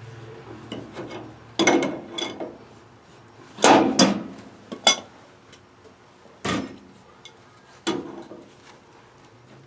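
Hand tools and metal pipe fittings knocking and scraping: about half a dozen irregular clanks and rubs, the loudest about four seconds in.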